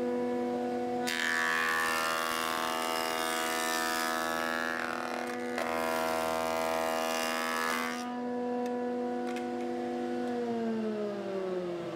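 Jointer-thicknesser with a three-knife cutterhead running with a steady multi-tone hum. From about a second in until about eight seconds a board is planed over the freshly changed knives, a loud hissing cut. Near the end the tone falls as the machine winds down.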